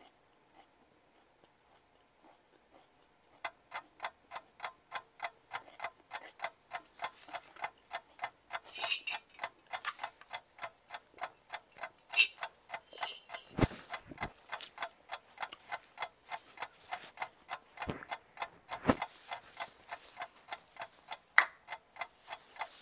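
Clock ticking: a steady run of fast, even ticks that starts a few seconds in after near silence.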